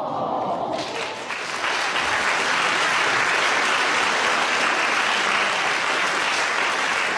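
An audience of school pupils applauding. The clapping swells about a second in and then stays steady, with a few voices over it at the start.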